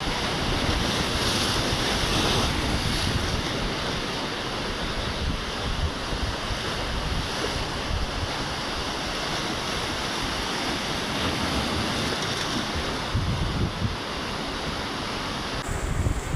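Ocean surf breaking and washing on a beach, a steady rushing, with wind buffeting the microphone in low rumbling gusts, stronger near the end.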